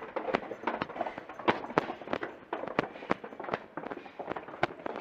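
Footsteps going quickly down a staircase, with a sharp tap at each step, two to three a second.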